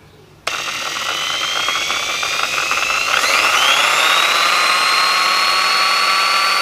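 Plugged-in electric power tool starting up with a sudden whine. About three seconds in its motor spins up to a higher, steady whine.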